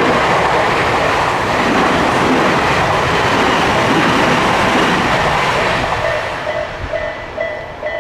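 An electric commuter train passing over a level crossing, its wheels and running noise loud and then fading away about six seconds in. As it fades, the crossing's electronic warning bell comes through, ringing in a steady repeating ding, about two strokes a second.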